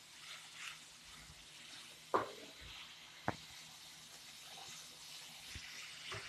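Low sizzling of banana heart and ground pork cooking in a pan, with two sharp knocks, the louder about two seconds in and another about a second later.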